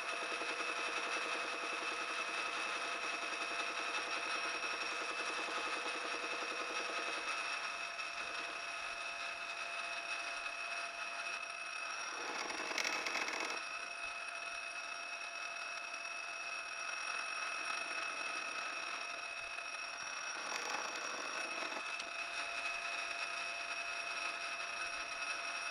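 Metal lathe running while the cutting tool turns the outside of a bearing retainer blank on an expanding mandrel, with a steady machine whine throughout. The cut starts out interrupted, with a fast regular rattle for about the first seven seconds, then runs smoother, with a brief louder scraping patch about twelve seconds in.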